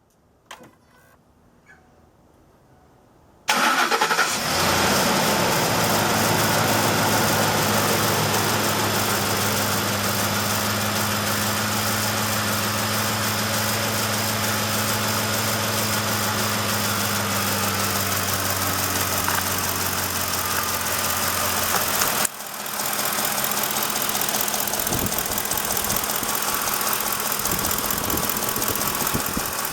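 Ford F-150's 5.4-litre three-valve Triton V8 starting about three and a half seconds in after a couple of faint clicks, then idling steadily. The engine has a ticking that turned out to come from failing coil packs and spark plugs.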